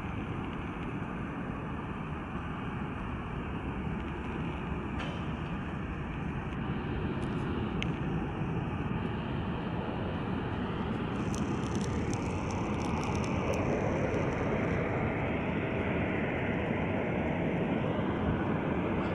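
Jet airliner engine noise: a steady rush that slowly grows louder, with an engine whine gliding in pitch about twelve to fifteen seconds in.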